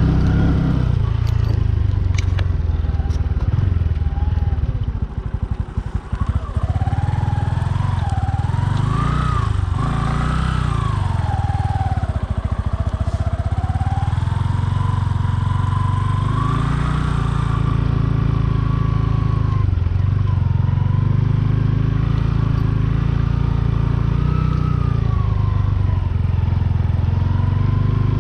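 Bajaj Boxer 150's single-cylinder four-stroke engine running under way, its pitch rising and falling with the throttle; it eases off briefly about five seconds in.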